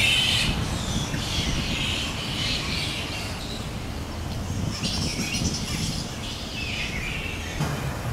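A roosting colony of spectacled flying foxes calling: many overlapping high-pitched calls all through, over a low background rumble.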